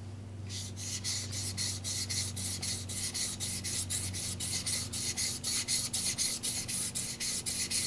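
Blade of a 150 mm Tojiro white steel No. 2 petty knife scraping back and forth on a wet water stone in quick, even strokes, about four a second, starting about half a second in. He is thinning the blade's grind, pressing it flat on the bevel.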